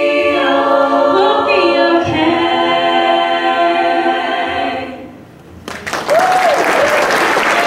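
Women's a cappella group singing the final held chord of a song, which dies away about five seconds in. Then the audience breaks into applause.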